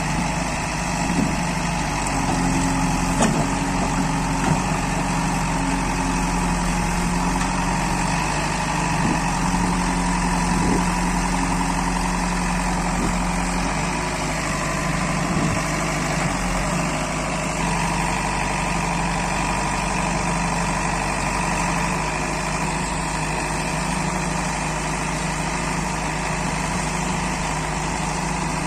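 Diesel engine of a JCB 3DX backhoe loader running steadily while its backhoe arm is pressed down to lift the machine's front end, with a few short knocks in the first half. A tractor engine runs along with it.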